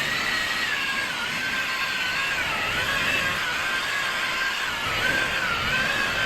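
Electric polisher running steadily while buffing rubbing compound into fiberglass gelcoat, its motor whine wavering in pitch as the load on the pad changes.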